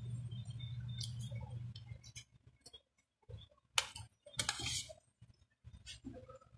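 Metal spoon clinking and scraping against a plate as rice is scooped up, in scattered light clicks. The loudest is a short scrape a little past the middle, followed closely by a longer one. A low steady hum drops out about a third of the way in.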